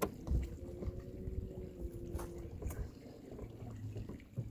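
Small fishing boat's motor running steadily at low trolling speed, with a steady tone for about two seconds and a few sharp clicks and knocks around the boat.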